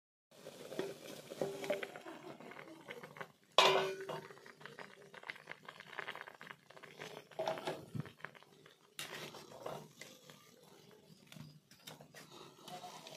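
Jolpai (Indian olives) boiling hard in salted water in a metal wok: bubbling water full of small clicks, with metal utensils clattering against the pan. The loudest sound is a sharp metallic knock about three and a half seconds in.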